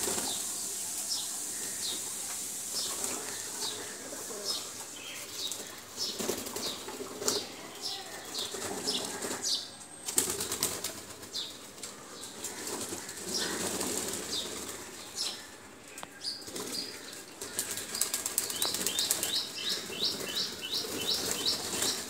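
A flock of pigeons flapping their wings, with many short, high chirps repeating throughout and coming in a quick run near the end.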